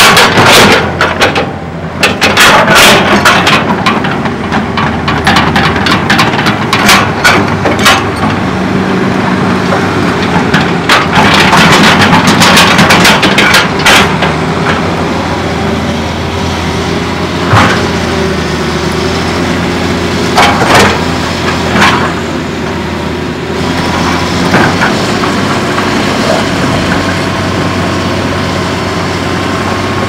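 Hitachi crawler excavator's diesel engine running steadily, with a dense run of knocks, clanks and scrapes from the machine working on rubble through the first half, thinning to a few separate knocks later on.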